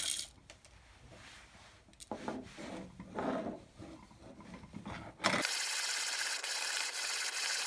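Light scraping and small clicks as the 1950s Lehnartz manual conical burr coffee grinder is handled. About five seconds in, grinding starts abruptly: coffee beans crushed between the burrs as the handle turns, a steady gritty crunching with fine rapid ticks.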